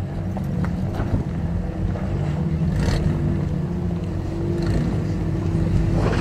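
Engine of a lifted, solid-axle-swapped 2002 Nissan Frontier running steadily as the truck crawls slowly over rocks, with a brief crunch about three seconds in and again near the end.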